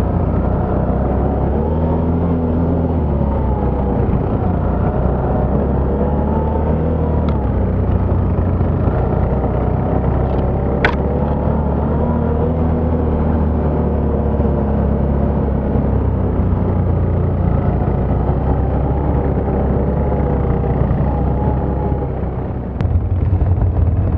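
ATV engine running steadily as the quad is ridden along a trail, its pitch rising and falling with the throttle. A single sharp click about eleven seconds in.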